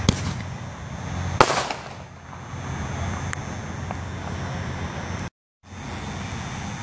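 A 1-inch mini artillery shell firing: a sharp launch crack from the mortar tube, then about a second and a half later a louder bang as the shell bursts in the air, fading briefly. A steady low hum runs underneath, and the sound cuts out for a moment about five seconds in.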